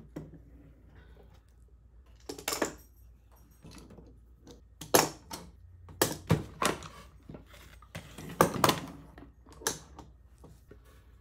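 Steel bar clamps being loosened and pulled off a glued-up stack of hardwood strips: irregular sharp metal clanks and knocks, some in quick pairs, with short quiet gaps between.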